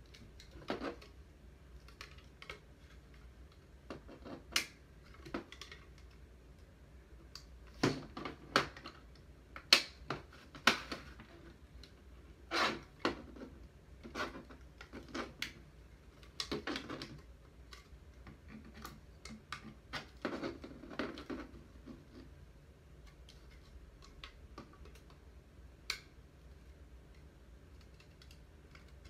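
Hard plastic parts of an action figure's display stand clicking, tapping and scraping as they are handled and fitted together, in irregular clicks with a few sharper knocks in the middle.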